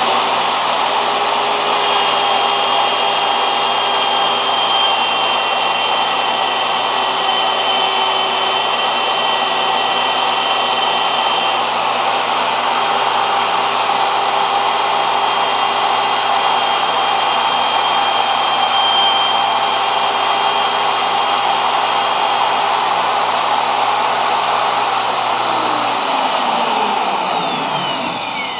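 Router motor running at full speed with a steady high whine, its bit cutting a radius profile into a wooden sanding drum. Near the end the router is switched off and its whine falls in pitch as it winds down.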